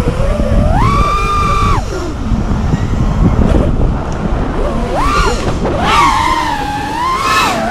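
FPV quadcopter's brushless motors whining in flight, the pitch swinging up and down with the throttle: held high about a second in, dropping, then climbing again about five seconds in. Heavy wind rush runs underneath.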